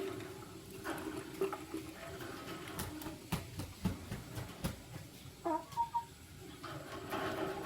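Lovebirds chattering softly, with a short pitched call about five and a half seconds in. A few sharp clicks sound in the middle.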